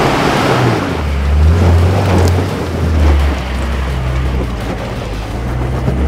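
Nissan Patrol engine labouring under load as the ute crawls up a rocky step, its low note swelling and easing, with a dense rough noise of tyres scrabbling over dirt and rock.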